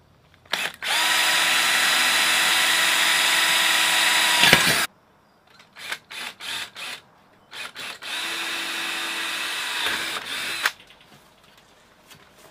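Cordless drill boring pilot holes in a steel pipe: one steady run of about four seconds, its pitch dipping just before it stops, then a few short clicks, then a second, shorter run of about two and a half seconds.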